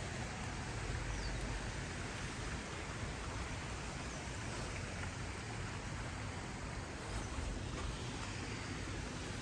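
Steady outdoor background noise with a low rumble underneath, and a few faint high chirps now and then.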